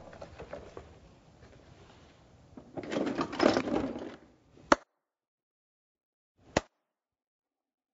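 Blue plastic Aquaplay 512 carry case being folded shut: a rattle of plastic parts about three seconds in, then a sharp click as the case snaps closed, and a second click about two seconds later.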